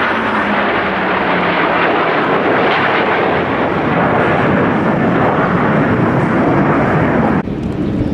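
Aircraft flying past: a loud engine roar with an underlying tone that falls in pitch early on, then a sudden drop in level near the end.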